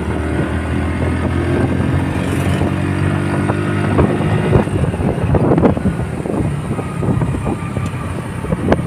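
Small single-cylinder motorcycle engine running steadily at cruising speed, heard from the bike being ridden, with wind rushing over the microphone and a few short sharp knocks.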